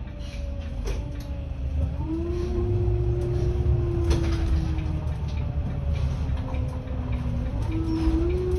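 Volvo 7900 Hybrid city bus running, heard from inside: a whine from the drive that drifts and steps up in pitch about two seconds in and again near the end, over a low rumble, with scattered clicks and rattles.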